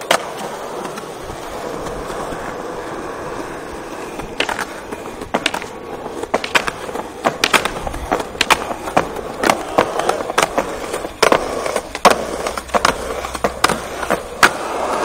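Skateboard wheels rolling on smooth concrete. From about four seconds in comes a run of sharp clacks, roughly two a second, as the wheels cross joints and edges in the pavement.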